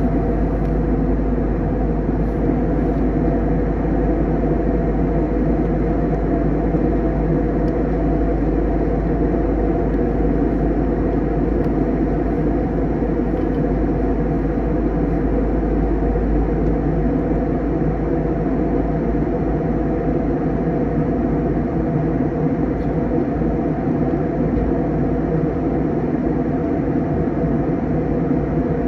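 Steady cabin noise inside an Airbus A321 in flight: the even drone of the jet engines and rushing airflow around the fuselage, with a few faint steady tones running through it.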